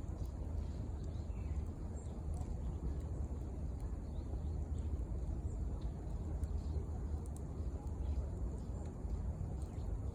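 Wood fire burning in the open, with scattered small crackles and pops over a steady low rumble.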